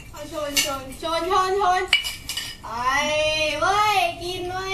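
Drinking glasses clinking together in a toast, with several sharp clinks in the first half, amid women's voices. In the second half one voice holds a long cheer that rises and falls.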